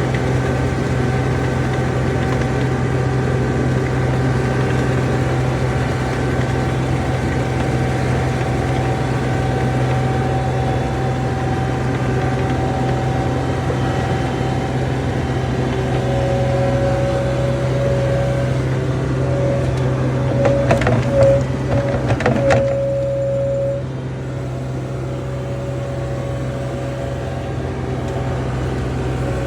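John Deere 250 skid steer's diesel engine running steadily, heard aboard the machine. A steady high whine joins in about halfway, and a short burst of clanks and rattles comes about two-thirds through.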